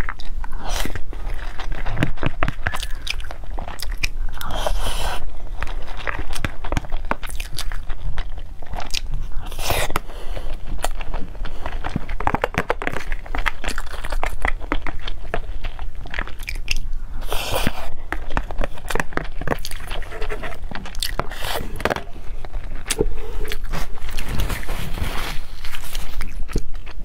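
Close-miked eating: chewing mouthfuls of rice with wet mouth sounds, with a metal spoon clicking and scraping against a plastic food box in short sharp strokes.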